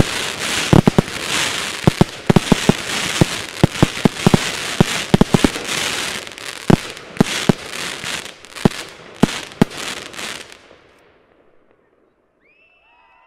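Fireworks crackling and popping as gold crackling stars burst over a steady hiss. The sound thins out and dies away to near silence about eleven seconds in as the last effect burns out.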